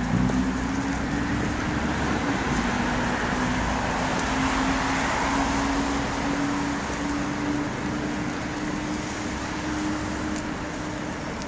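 Steady rain hiss mixed with road traffic: a continuous engine hum and a low rumble that fades about halfway through, with the hiss swelling in the middle as if a vehicle passes on wet road.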